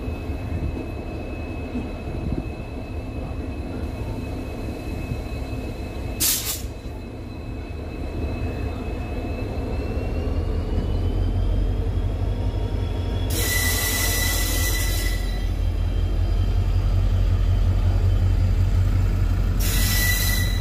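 Passenger train running on the rails: a steady rumble of wheels and track that grows louder from about halfway through. A thin high squeal runs over it and glides upward, with a single sharp clack about six seconds in and two short bursts of hiss near the end.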